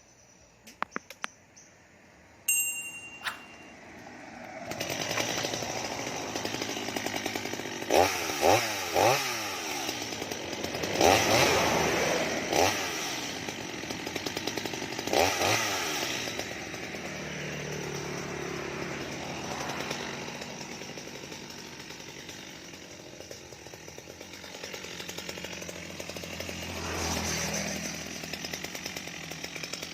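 Mini two-stroke chainsaw engine catching after a few quiet seconds and revving in several sharp blips. It then runs steadily at a lower pitch as it cuts into a mango tree.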